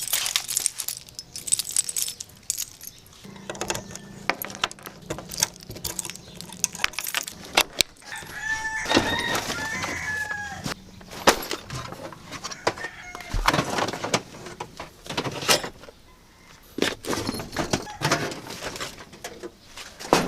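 A rooster crows once, about nine seconds in, over scattered clicks and knocks.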